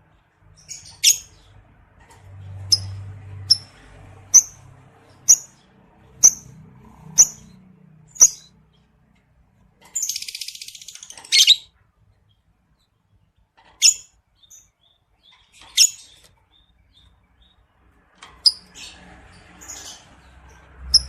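Lovebird calling: sharp, shrill chirps repeated about once a second, then a longer harsh, rasping chatter about ten seconds in, and a few scattered chirps near the end. This is a lure recording used to stir male lovebirds into their breeding-mood chattering song.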